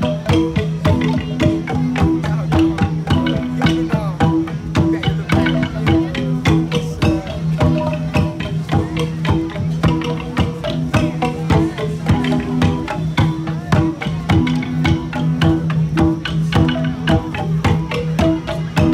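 Central Highlands gong ensemble (cồng chiêng) playing: several tuned gongs struck in a repeating interlocking cycle, their pitches ringing on under quick, dense beats.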